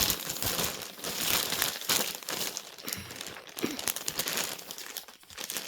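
Packaging being handled and crumpled, a continuous crinkling crackle made of many small sharp crackles.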